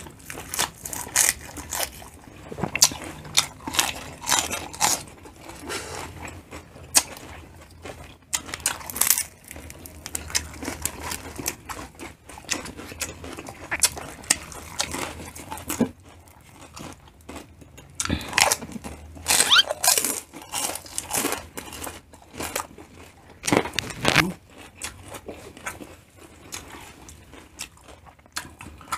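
Close-miked eating: irregular crisp crunching and chewing of romaine lettuce leaves and chicharon pork rinds, with bursts of crunches near the start and again past the middle.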